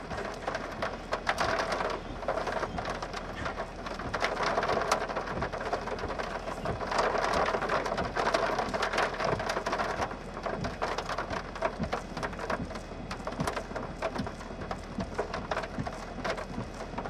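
Raindrops hitting a car's windshield and body, heard from inside the vehicle: many irregular sharp taps over a steady rushing hiss.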